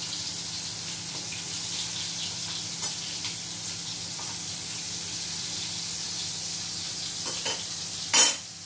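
Prawn vadas shallow-frying in rice bran oil, a steady sizzle with scattered crackles. A brief, sharp, loud knock comes near the end.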